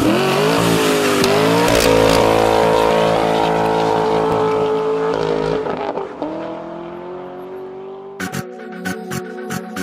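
Corvette V8 held at high revs through a burnout, with tyre squeal: the pitch climbs in the first couple of seconds, holds high, then drops and fades about six seconds in. A rhythmic electronic music beat comes in near the end.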